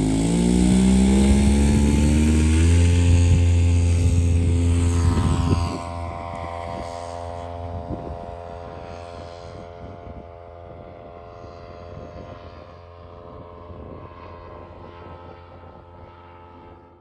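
Model tow plane's engine and propeller revving up to full power and then holding a steady high drone while towing a large RC glider aloft; louder for the first few seconds, then dropping away and fainter after about six seconds as the plane climbs off.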